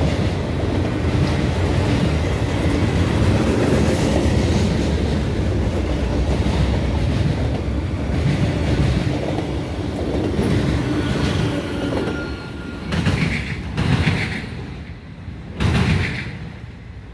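Slow-moving freight train of autorack cars rolling past, a steady rumble of steel wheels on rail with a brief faint squealing tone about eleven seconds in. The sound falls away after about twelve seconds as the train recedes, with three short loud rushes of noise near the end.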